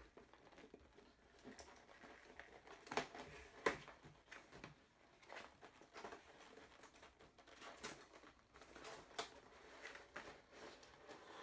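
Faint crinkling and clicking of plastic packaging being handled as the boxed toy's parts are taken out, with two sharper clicks about three and a half seconds in.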